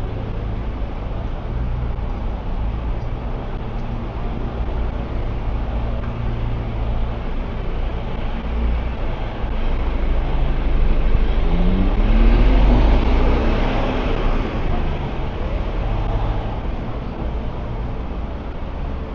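City street traffic: a steady engine rumble, with one vehicle accelerating past close by about two-thirds of the way through, its engine pitch rising as it gets louder.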